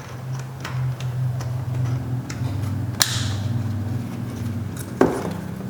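Sharp plastic clicks and handling sounds as a door wiring-harness connector is plugged back together and the trim parts are fitted. The loudest clicks come about three seconds in and again near five seconds, over a steady low hum.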